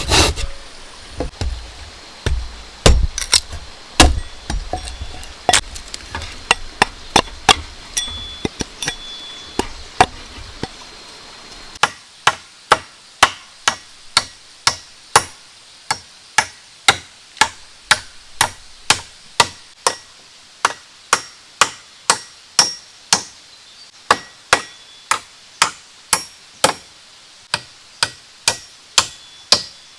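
A hand tool striking wood or bamboo over and over: irregular knocks with a few heavier thumps at first, then partway through a steady run of sharp strikes at about two a second.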